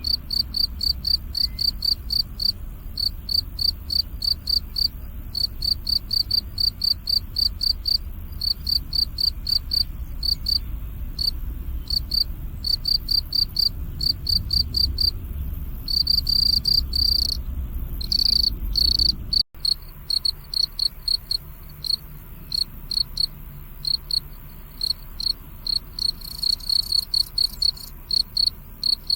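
Crickets chirping in a steady, high-pitched rhythm of a few chirps a second, over a low rumble. The sound breaks off for an instant about two-thirds through, and the rumble is quieter after that.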